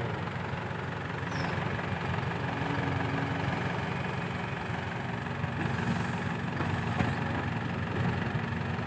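Diesel engines of a Sumitomo SH130 excavator and an Isuzu NPR dump truck running steadily as the excavator loads sand into the truck's bed, with one sharp knock about seven seconds in.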